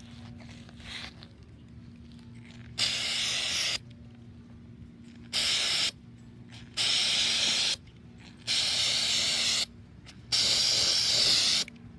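Aerosol can of Rust-Oleum textured spray paint spraying in five short bursts, each between about half a second and a second and a half long.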